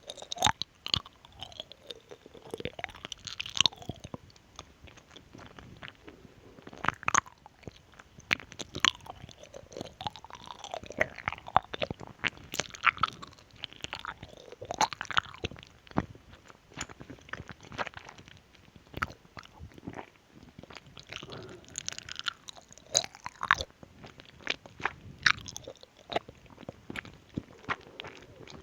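Close-miked mouth sounds of someone chewing a small cube of gummy candy: wet smacks and sharp clicks of the lips and tongue, coming in irregular bursts.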